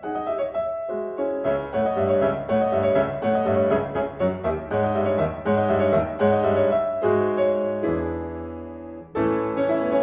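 Background music led by piano, quick repeated notes over a bass line; a chord is held and fades near the end before a new phrase comes in.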